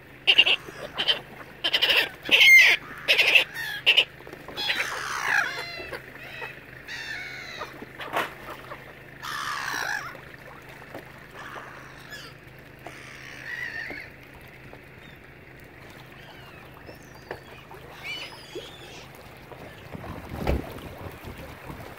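Waterbirds calling: a run of loud, harsh calls in the first four seconds, then two long falling calls about five and nine seconds in, and scattered quieter calls after that. There is a low thump near the end.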